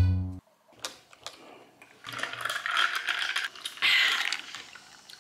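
Paper food bag rustling and crinkling in two bursts, about two and four seconds in, with a few light clicks between. Background music cuts off right at the start.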